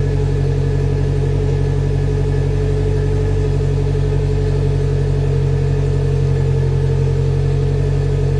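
Polaris Slingshot's engine idling steadily, an even low hum that holds the same pitch throughout.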